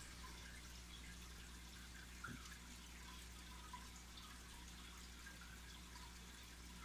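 Faint bubbling and trickling of an aquarium's air-bubble curtains, with scattered small pops over a steady low hum. One light knock comes about two seconds in.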